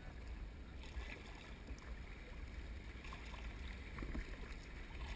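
Kayak paddle dipping into calm, shallow river water with faint splashes and drips, over a low rumble of wind on the microphone.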